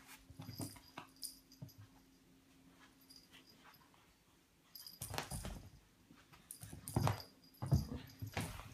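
Cat playing with a cat toy: irregular scuffles and knocks, quiet for a couple of seconds, then a louder flurry from about five seconds in.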